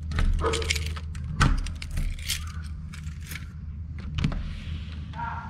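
Keys jangling on a keyring as a key is worked into and turned in a front-door deadbolt, with sharp metallic clicks, the loudest about a second and a half in. A single click about four seconds in as the handleset's thumb latch is pressed, over a steady low hum.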